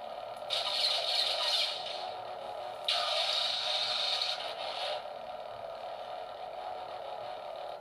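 A toy RGB lightsaber's built-in speaker playing its steady hum, with two louder hissing swing sounds, from about half a second to two seconds in and from about three to five seconds in.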